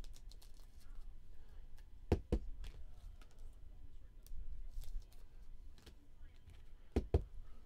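Light clicks and taps of trading cards and plastic card holders being handled on a table, with two pairs of sharper knocks, one about two seconds in and one near the end.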